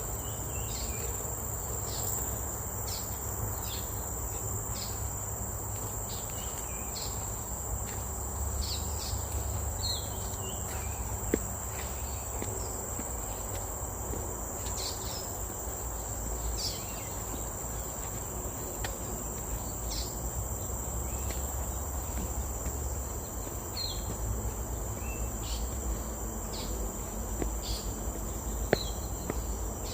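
Steady high-pitched insect drone, with short falling chirps every second or so and a low rumble underneath; two sharp clicks stand out, about a third of the way in and near the end.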